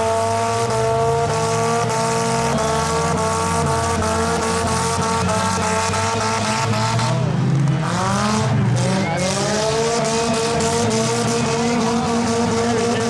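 Derby cars racing on a figure-8 track, engines running at high revs. About seven and a half seconds in, the engine pitch drops and then climbs again as a car backs off and accelerates.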